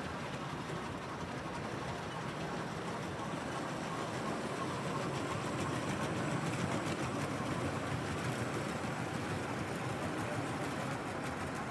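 O gauge model mixed freight train running along the layout's track: a steady rumble of wheels on rail that swells a little as the wagons pass.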